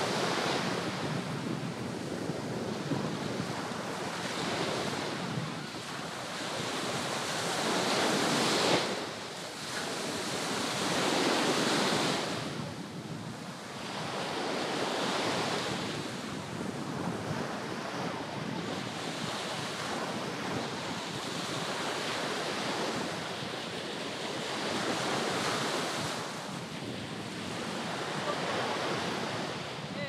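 Small Mediterranean waves breaking and washing up a sandy beach, the surf swelling and fading every few seconds, with wind rumbling on the microphone.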